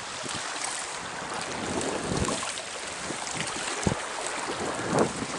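Steady rush of flowing stream water with wind buffeting the microphone, and a few short knocks and splashes.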